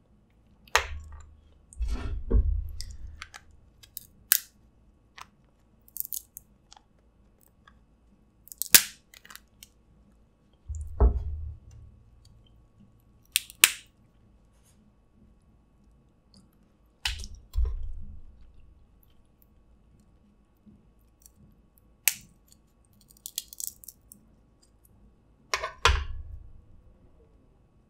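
Snow crab legs being cracked and picked apart by hand, with sharp shell cracks and clicks scattered through and close-miked chewing of the crab meat. Several dull low thumps come with the handling.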